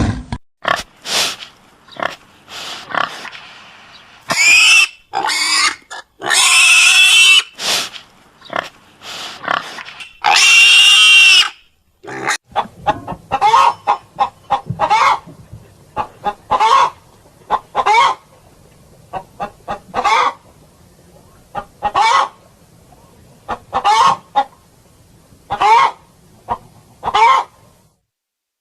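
Pigs grunting and squealing, with three long high squeals in the first half. From about halfway there is a run of short calls about every two seconds.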